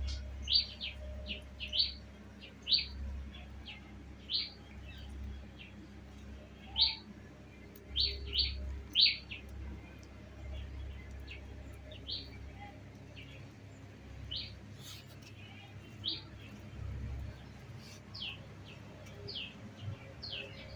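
A parrot giving short, sharp chirps, in quick runs at the start and again about eight to nine seconds in, then spaced out every second or two.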